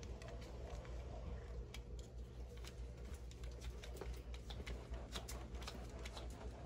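Faint, irregular light clicks and taps of a plastic toy being handled against a door's window screen, over a low steady hum.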